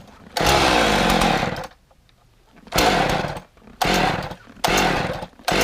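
Husqvarna 55 two-stroke chainsaw being pull-started cold on choke: about five sharp pulls on the recoil starter, the first and longest with the engine briefly firing and dying away.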